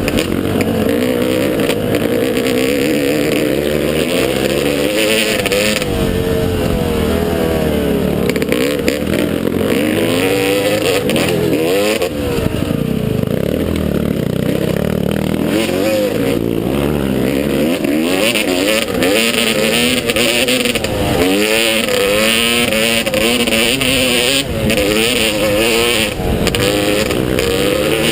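Motocross motorcycle engine revving hard, its pitch rising and falling over and over with the throttle and gear changes.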